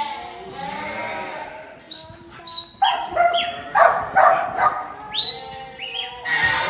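A young kelpie yard dog barking repeatedly in short, sharp barks as it works a mob of sheep in the yards, with sheep bleating.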